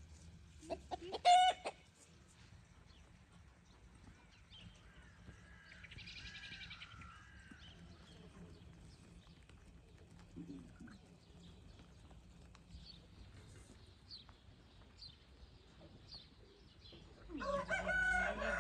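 A flock of chickens clucking and calling, with a short loud squawk about a second in and a rooster crowing faintly in the distance for about two seconds midway. A louder call comes in near the end.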